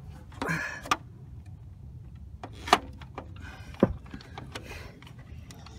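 Scattered sharp clicks and knocks as the BMW 535i's stuck thermostat and hose are wrenched and worked by hand, with a brief rustle near the start, over a steady low rumble.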